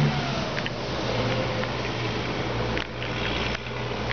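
A motor vehicle running nearby: a steady low hum under a hiss.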